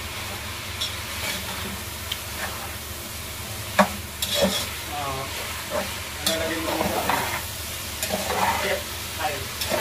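Meat sizzling as it browns in a metal pot on a gas stove, stirred and scraped against the pot by a metal slotted spatula, with scattered clinks and scrapes over the steady sizzle.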